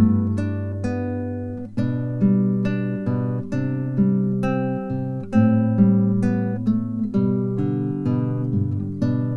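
Background music: acoustic guitar playing plucked and strummed chords in a steady rhythm.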